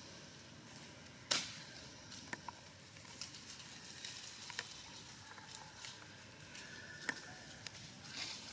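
Macaques moving through dry leaf litter and grass: faint rustling with scattered sharp crackles, the loudest about a second in.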